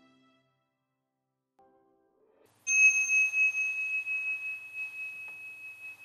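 A bell or chime struck once, about two and a half seconds in, rings on a single high steady pitch, wavering in level as it slowly fades. A short musical tail dies away at the start.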